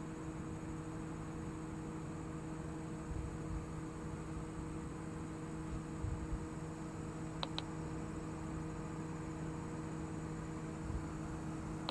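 Steady low hum with a few even tones, with two faint short ticks about seven and a half seconds in.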